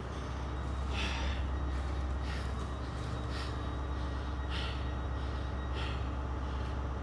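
A man breathing hard from the effort of climbing stairs, a heavy breath about every second, over a steady low rumble.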